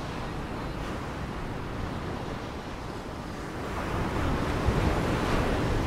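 Ocean surf washing onto a beach, a steady rushing noise that swells louder about four seconds in as a wave breaks.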